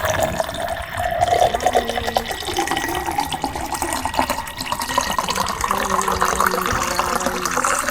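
Steady rush of running water, with faint steady tones underneath.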